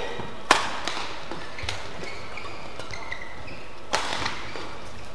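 Badminton rackets striking a shuttlecock in a rally: sharp smacks, the loudest about half a second in and another about four seconds in, with fainter hits between. Short squeaks of court shoes on the mat come between the hits.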